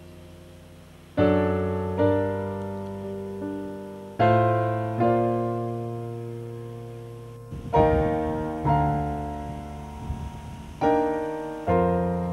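Slow solo piano background music: a chord struck every one to three seconds, each left to ring and die away.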